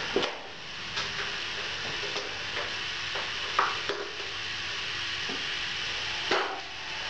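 Sharp metal clicks and knocks as the stainless lid and copper pot-still head are seated on a Robobrew boiler and its side latch clamps are fastened. A steady hiss from the boiler heating the wash with both elements on runs underneath.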